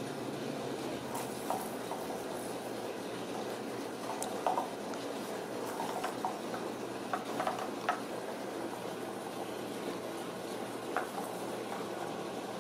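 Ragdoll kittens scuffling with a toy on a rug: scattered soft taps and rustles, with a few small clusters, over a steady hiss.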